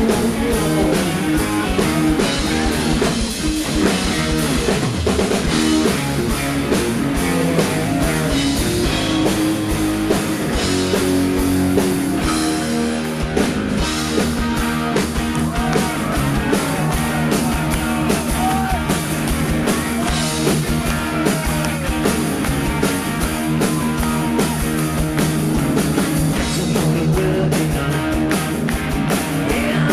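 Rock band playing live: electric guitar over a full drum kit, with a steady beat.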